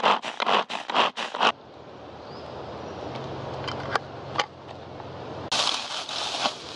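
Hand-pulled cord food chopper whizzing as it chops wild garlic, about four quick pulls a second, stopping suddenly about a second and a half in. After a quieter stretch with a couple of light knocks, dry bracken crackles and rustles loudly as it is stuffed into a metal twig stove near the end.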